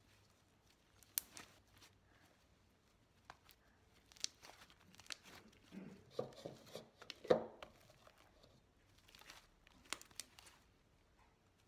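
Hands kneading and squishing cornstarch-coated slime in a plastic bowl: faint, scattered sticky crackles and clicks, with a louder run of squishes about six to seven and a half seconds in.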